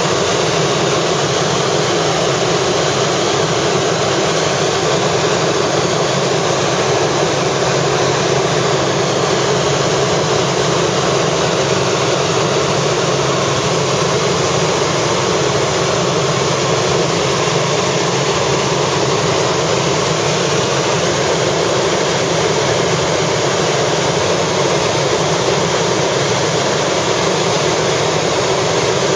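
Helicopter in flight: a loud, steady drone of its engine and rotor.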